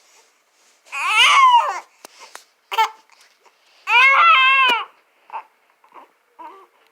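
Two-month-old baby fussing and crying because of hiccups. There are two loud wails, about a second in and about four seconds in, with short whimpers between and after them.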